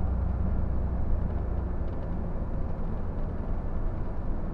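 Scania tour coach's diesel engine and road noise heard from the driver's cab, a steady low drone as the coach rolls along at an easy pace.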